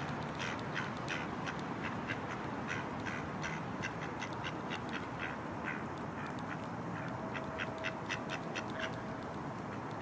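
Ducks quacking in quick runs of short calls, several a second, with a pause about six seconds in and another run near the end.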